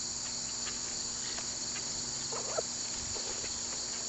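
Steady, high-pitched chorus of insects chirring, with a faint low hum that stops about three seconds in.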